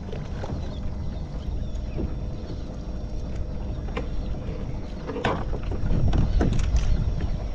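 Steady low rumble of wind and water around a kayak at sea, with scattered clicks and knocks as a fish is landed and clamped in a lip-grip tool. The rumble grows louder about six seconds in.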